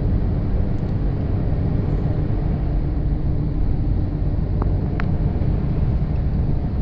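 Steady low rumble of a vehicle driving up a snow-covered road, heard from inside the cab: engine and tyre noise. Two light clicks come a little past the middle.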